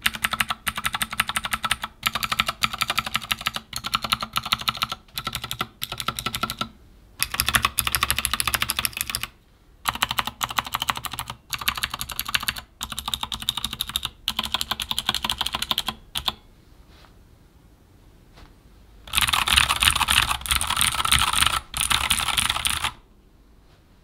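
Keychron K14 mechanical keyboard with Gateron Blue clicky switches being typed on in fast bursts of key clicks, broken by short gaps. There is a pause of two or three seconds past the middle, and the typing stops about a second before the end.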